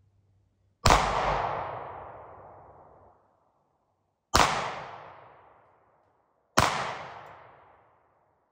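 Three pistol shots, the first about a second in, then two more close together past the middle, each followed by a long echo that dies away over a couple of seconds.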